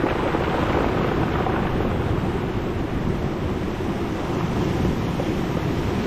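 Surf washing over a beach of rounded cobbles and pebbles, the stones rattling and rolling against each other as the water drags back through them. The sound is a steady, dense rush.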